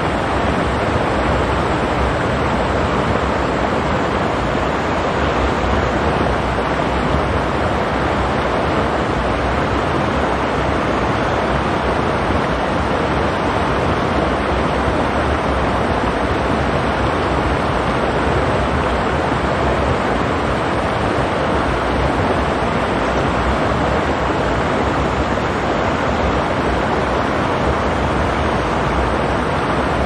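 Water of a rocky stream rushing steadily: an even, unbroken noise.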